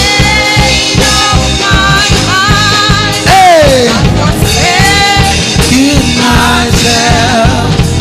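A worship band playing the song with a steady drum beat while a singer holds and bends long notes without clear words, with a long falling slide about three seconds in.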